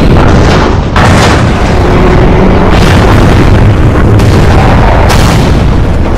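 Heavy booms and explosion impacts from an animated battle over a constant deep rumble, with sharp hits about a second in and again around three, four and five seconds in.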